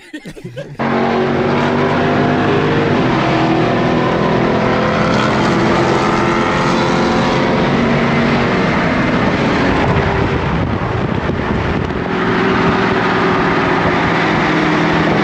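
Dodge Challenger V8 engine running steadily at highway speed, heard from inside the car's cabin with heavy road and wind noise. The level sags slightly around ten seconds in, then picks back up.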